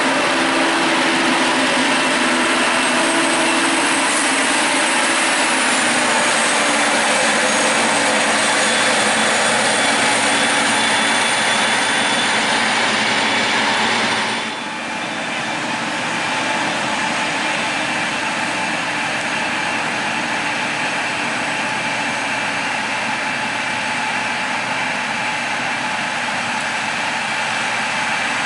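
Heavy diesel machinery running steadily under load, with a thin high whine over the engine noise. About halfway through the sound dips briefly and changes, then carries on a little quieter.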